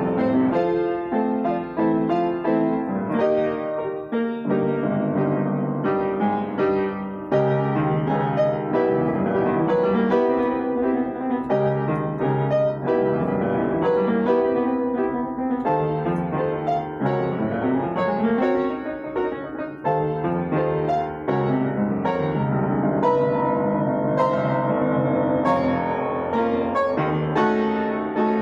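Solo piano played continuously, a busy stream of notes with no pauses.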